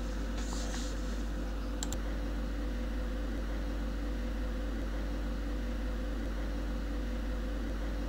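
Steady low electrical hum with even background hiss, the noise floor of the recording, and one faint click about two seconds in.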